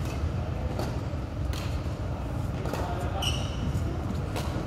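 Badminton hall ambience: a steady low rumble with a few sharp clicks scattered through it, and a short high squeak about three seconds in from a sports shoe on the court mat.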